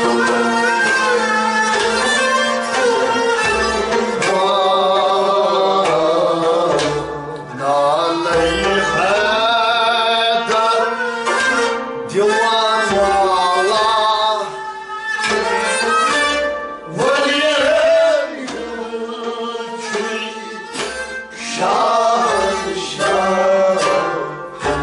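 Traditional devotional song (kalam) performed live: a voice sings a wavering, ornamented melody over a harmonium's held reed chords and bowed string instruments.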